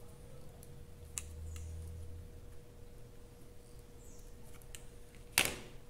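A few small metallic clicks of pliers working thin wire as it is twisted tight, then a louder clack near the end, over a faint steady hum.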